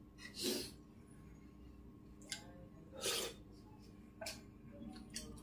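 A steel spoon scraping and clinking against a steel plate as rice and dal are mixed and scooped, in a few short, faint strokes, the loudest about three seconds in.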